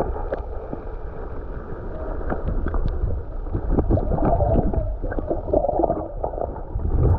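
Muffled gurgling and rumbling of river water, heard through an action camera's microphone held underwater.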